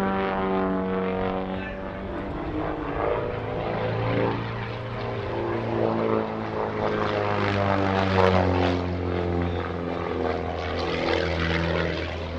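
Christen Eagle aerobatic biplane's piston engine and propeller running during aerobatic manoeuvres, the engine note sliding down and then up again as power and speed change, loudest about eight seconds in.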